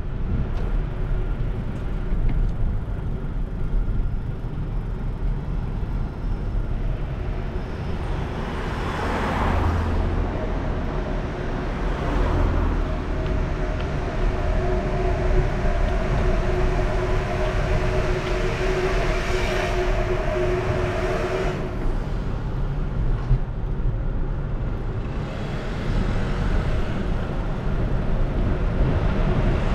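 City street traffic heard from a moving bicycle: a constant low rumble with vehicles passing, one louder pass about nine seconds in. A steady two-note hum sounds from about twelve seconds in and cuts off suddenly about twenty-one seconds in.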